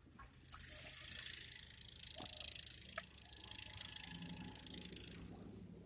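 Cars passing on a snow-covered street, their tyres hissing through slush in swells that rise and fade, with a low engine hum joining near the end.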